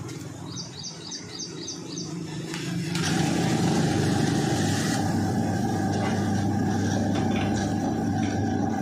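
A bird chirps five times in quick succession. About three seconds in, a machine shop's spindle machine starts up with its coolant flow and runs steadily with a low hum and a steady whine, with a hiss for its first couple of seconds.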